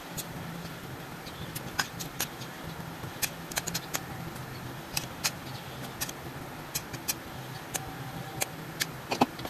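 Metal utensil clinking and scraping against a stainless-steel steamer pot and its tray: scattered sharp clicks, a dozen or more, over a low steady hum.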